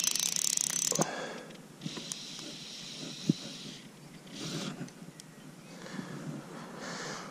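A fly reel's ratchet buzzing in several spells while a hooked carp is played: loudest in the first second, then quieter runs of clicking.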